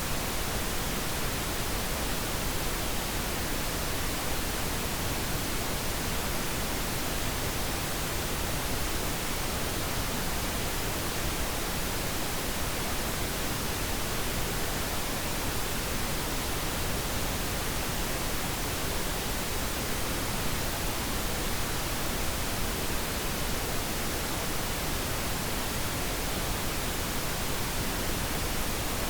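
Pink noise: a steady, even hiss spread across all pitches, unchanging throughout.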